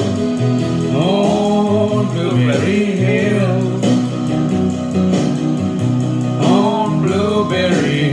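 A man singing over guitar-led backing music, with two sung phrases, one starting about a second in and another near the end, while the accompaniment carries on steadily.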